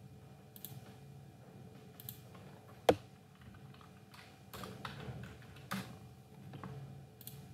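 Typing on a computer keyboard: scattered keystrokes, thickening into a quick run in the second half, with one loud sharp click about three seconds in.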